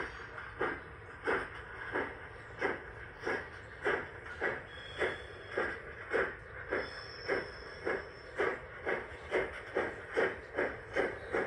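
Garden-scale model BR 50 steam locomotive's sound unit playing exhaust chuffs, a steady rhythm of hissing puffs that speeds up from about one and a half to about three a second as the locomotive gathers speed.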